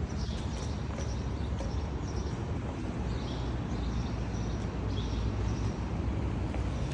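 Steady low outdoor rumble, with faint short bird chirps now and then.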